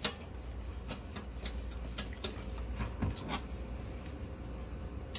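Wire whisk clicking irregularly against a stainless saucepan while stirring a melting cheese sauce, about one or two light taps a second, over a steady low hum.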